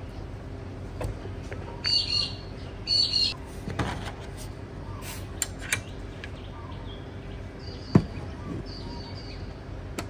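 Birds calling: two loud, short calls about two and three seconds in, and fainter ones later. Scattered light clicks and one sharp knock near the end, from the solar panel bracket being handled on the corrugated aluminium roof.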